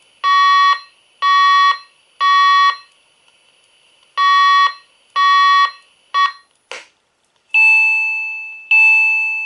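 Fire alarm speaker/strobe, an Edwards unit fitted with a Wave 2 siren's speaker, sounding the temporal-three evacuation tone: two sets of three half-second buzzy tones. The next set is cut off after a short blip, then comes a click and two ringing tones that fade out.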